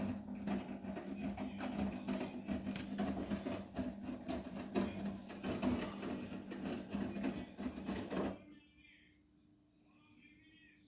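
Vestel CMI 97302 front-loading washing machine on a 70 °C cotton wash, its drum turning with a steady motor hum while the wet laundry tumbles with irregular knocks and rattles. About eight seconds in the drum stops suddenly, the pause between turns in the wash cycle.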